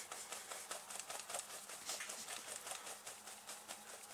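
Faint, quick, regular rustling of a hand rubbing against the cloth of a pair of shorts, about seven or eight strokes a second.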